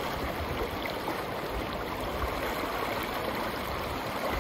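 Steady rushing of a broad, fast-flowing river current.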